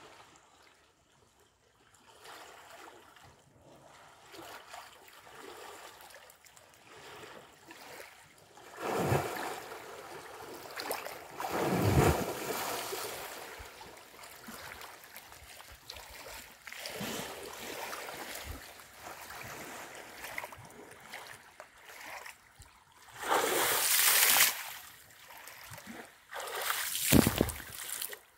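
African elephant bull wading and splashing in a waterhole, water sloshing and splashing in loud bursts several times, the biggest about a third of the way in and again near the end, with quieter lapping between.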